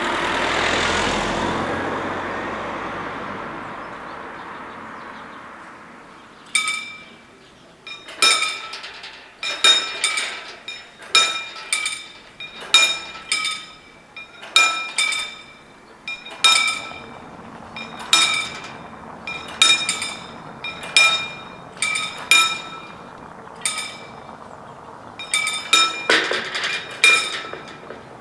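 A car drives over the crossing and its sound fades away. About six seconds in, the level-crossing warning bells start: single ringing strokes at an uneven pace of roughly one a second, from two bells striking out of step, warning of an approaching train while the barriers come down.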